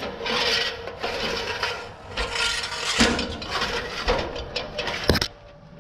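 Climbing an aluminium extension ladder: scuffing, rubbing and knocking of boots and hands on the metal rungs and rails, with a sharp knock about five seconds in.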